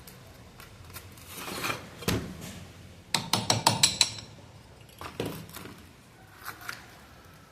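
Metal parts and tools being handled on a workbench: scattered knocks and clinks, with a quick run of about six sharp metallic clinks about three seconds in.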